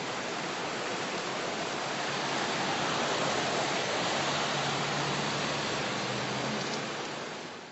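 Fast, churning floodwater of a flooded creek rushing by with a steady hiss of running water, a little louder in the middle and fading out at the very end.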